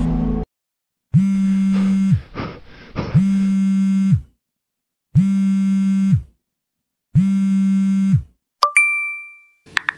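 A mobile phone vibrating in four one-second buzzes about two seconds apart, then a single short notification ding near the end.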